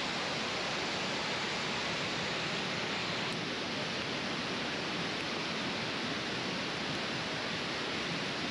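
Steady rushing of water, an even hiss with no breaks or gusts.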